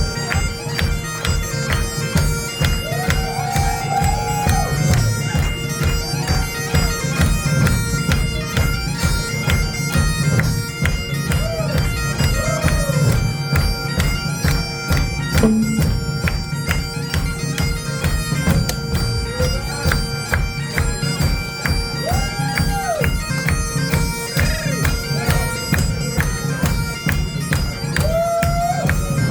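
Bagpipes playing with a live rock band: a steady bagpipe drone over a fast, even beat, with occasional swooping notes above it.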